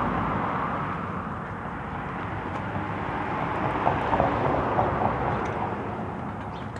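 Road traffic passing by: a steady rush of vehicle noise that slowly fades, swells again about four seconds in, then fades.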